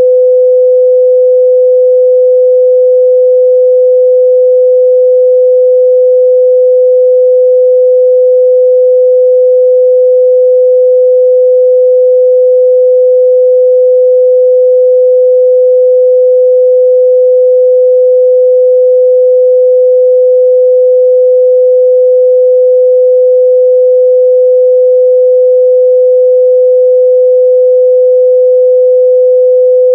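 A steady, loud 505 Hz sine-wave test tone, a single pure pitch held without change, used to check a speaker's or headphones' mid-range response.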